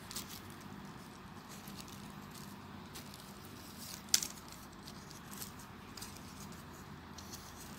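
Folded paper units of a 3D origami model rustling and ticking faintly as fingers press and shift them, with one sharper click about four seconds in, over a steady low background hum.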